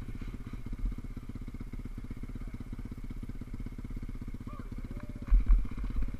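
SSR150 pit bike's single-cylinder four-stroke engine idling with a steady, fast, even beat. About five seconds in, heavy low thumps come in over it.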